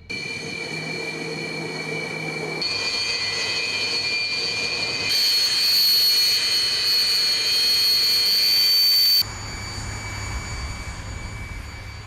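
Jet engine running with a high steady whine over a roar. The sound switches abruptly three times and is loudest in the middle.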